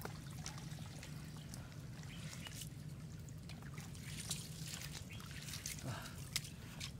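A wet cast net being worked through by hand in shallow muddy water: scattered small clicks, crackles and watery splashes and drips as the mesh and debris are handled and the net is lifted, over a steady low hum.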